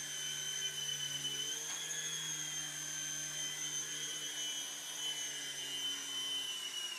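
Small remote-control toy helicopter's electric motor and rotors running with a steady high-pitched whine, wavering slightly about two seconds in. The whine cuts off suddenly near the end as the helicopter lands.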